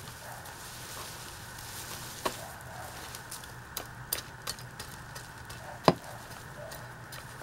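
Hand pruning shears snipping through ginger stalks and roots: scattered sharp clicks, the loudest about six seconds in.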